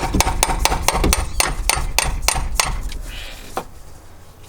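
Hammer driving a chisel into a stuck spin-on oil filter on a Ford 400 V8 to get purchase to unscrew it: a quick run of sharp metal blows, about four a second, slowing after two and a half seconds with one last blow near the end.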